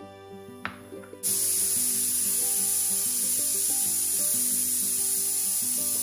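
A stovetop pressure cooker blowing steam through its weight valve: a loud steady hiss, the cooker's 'whistle', which starts suddenly about a second in and lasts about five seconds over soft background music. It is the sign that the cooker has come up to pressure and the vegetables inside are cooking.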